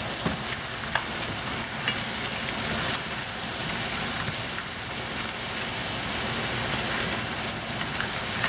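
Rock crab claws frying in hot oil with garlic, ginger and onion, a steady sizzle as they are stirred with a spatula to brown them. A few light clicks come through as the claws and spatula knock against the pan.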